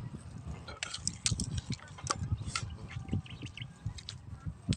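Scattered small clicks and soft low knocks, irregular, of people starting to eat a meal together.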